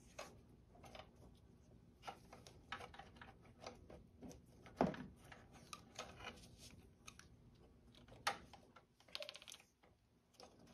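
Black vinyl electrical tape being pulled off its roll and wrapped tightly around a cable on a copper pipe: faint scattered crackles and clicks of the tape and fingers, with a short rasping rip of tape unspooling about nine seconds in.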